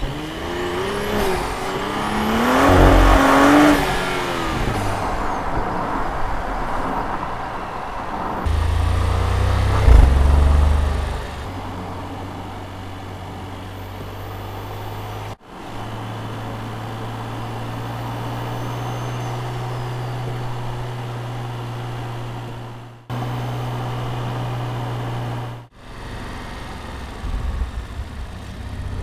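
Porsche Cayenne S's four-litre twin-turbo V8 revving, its pitch climbing and falling in the first few seconds, then a loud low rumble and a steady low drone at cruise. The sound breaks off abruptly a few times.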